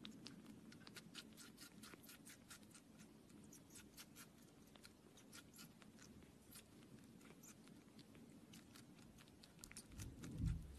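Faint wet clicks of a kitten suckling and lapping milk from a plastic feeding syringe, several a second, over a low hum. A dull bump comes near the end.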